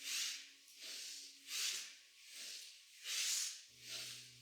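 Rapid, forceful pranayama breathing: three quick deep breath cycles, each a loud rush of air followed by a softer one, in a steady rhythm of energizing breathwork.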